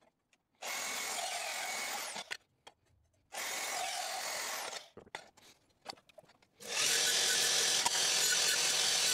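Vertical bandsaw cutting through stainless steel exhaust tubing in two short cuts, then a belt grinder running steadily and louder from about six and a half seconds in.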